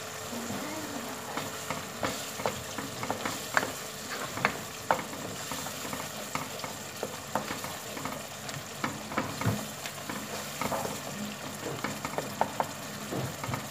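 Wooden spatula stirring a thick tomato mixture frying in a pot: a steady sizzle with irregular scrapes and taps of the spatula against the pot.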